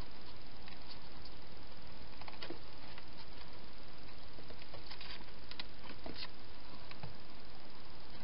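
Wild hedgehog eating from bowls inside a plastic feeding box, heard as irregular short sharp clicks and crunches over a steady hiss.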